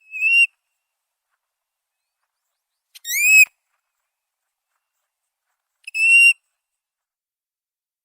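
Plover calling: three short, clear whistled notes about three seconds apart, the middle one rising in pitch.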